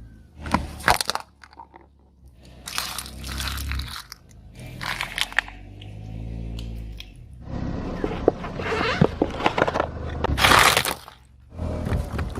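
Brittle objects crunching and crackling as a car rolls over them. The crunching comes in several separate bursts and ends with a long, dense run of cracking that is loudest near the end, with a low rumble underneath.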